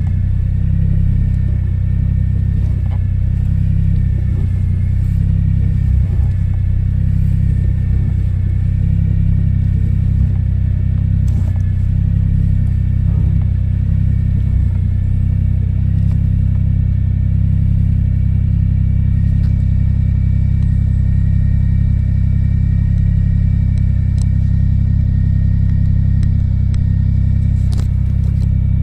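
Suzuki Jimny running, heard loud and close: a steady low rumble with two faint, slightly wavering high tones above it and a couple of small clicks.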